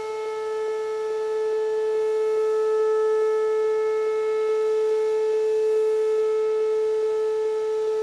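Pole-mounted electronic outdoor warning siren with stacked speaker horns, sounding its steady Alert signal: one loud, unwavering tone that swells slightly about a second in and then holds.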